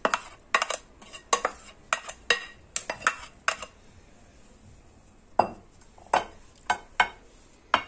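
A spatula scraping and knocking against a plate while tossing a lentil salad, in short strokes about twice a second, with a pause of nearly two seconds midway.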